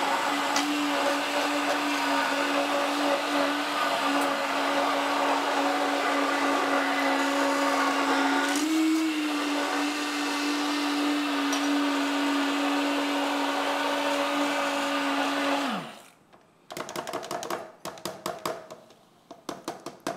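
Electric blender motor running steadily as it purees a green sauce of mint, garlic and soft cheese. Its pitch lifts briefly about halfway through. About three-quarters of the way in it is switched off and winds down, and a few light knocks and clatters follow.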